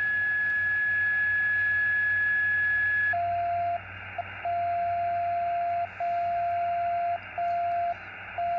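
A steady whistle-like carrier tone from a Xiegu X6100 HF transceiver's speaker in LSB, over receiver hiss, with no antenna connected. About three seconds in the tuning knob is turned and the tone drops to a lower pitch, then it cuts out and comes back several times. It sounds like somebody tuning up, but with no antenna attached it is suspected to be a birdie, a spurious signal made inside the radio.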